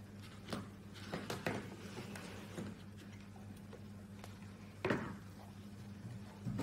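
Handling noise: a few knocks and taps as wood-cased LED desk clocks are moved about on a table, the loudest about five seconds in, over a steady low electrical hum.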